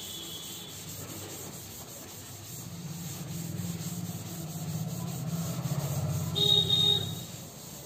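A cloth duster rubbing across a chalkboard as it is wiped clean, a rough scrubbing that grows louder through the middle. There is a brief pitched sound near the end, the loudest moment, before the rubbing fades.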